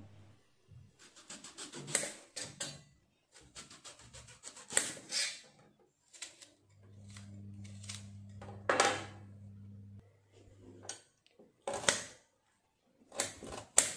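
Kitchen knife cutting a red onion, with irregular sharp clicks and scrapes as the blade meets the stainless steel chopping board.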